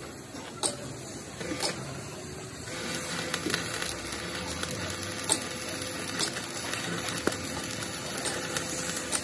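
Stick-welding arc on a steel truck frame rail: a few sharp clicks in the first seconds, then from about three seconds in the steady crackling sizzle of the arc as the weld bead is laid.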